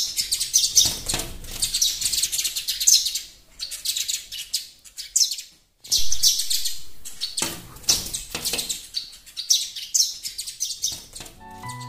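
House sparrows chirping in a rapid, continuous stream of short high chirps, with a brief break a little over halfway through.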